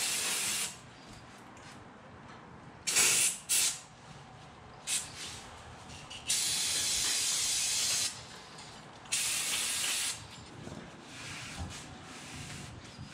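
Aerosol brake cleaner sprayed onto a brake rotor and hub to strip off grease, in several hissing bursts: a long spray that stops just under a second in, short spurts around three and five seconds, then two longer sprays of a second or two.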